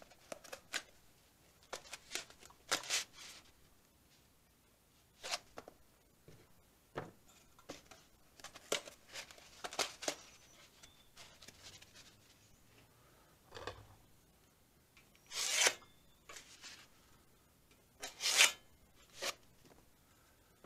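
Hands handling a 26-gauge galvanized sheet-metal plate and a foam pool noodle on a wooden workbench: scattered short rubs and scrapes with pauses between, the loudest two about 15 and 18 seconds in.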